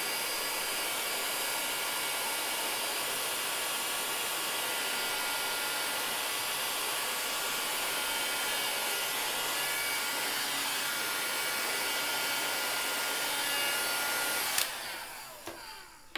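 Hot air gun blowing steadily while it shrinks heat-shrink tubing over a wire splice. Near the end it is switched off with a click and its fan runs down.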